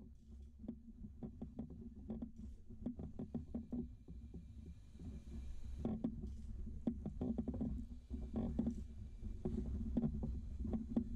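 VQ37VHR V6 being turned over by hand so the exhaust camshaft rotates to the next lobes: scattered faint clicks and knocks over a low hum, growing busier about halfway through.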